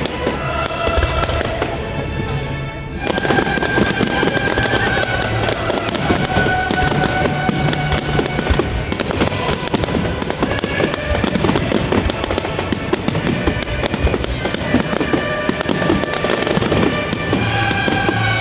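Fireworks display: a dense run of bangs and crackling from aerial shells bursting, which thickens and grows louder about three seconds in, with music holding long notes underneath.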